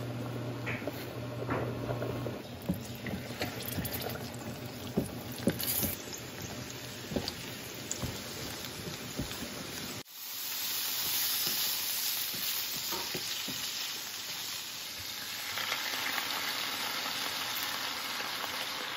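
Kitchen cooking sounds: scattered clicks and knocks of utensils and dishes, then, after a cut about ten seconds in, a steady sizzle of food frying in a pan.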